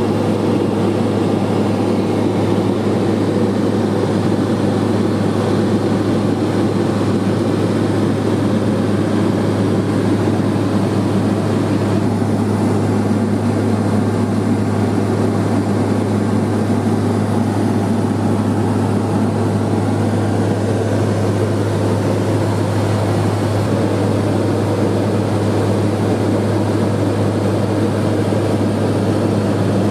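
Steady drone of a Cessna 210 Silver Eagle's single turboprop engine and propeller, heard inside the cabin in flight, with a strong low hum over a dense rushing noise.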